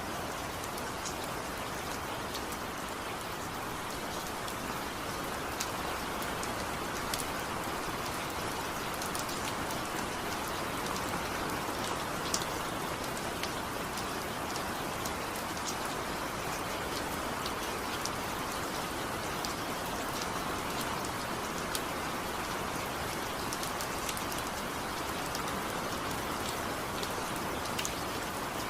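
Steady rain falling, an even hiss with scattered sharp drop ticks, without thunder or music.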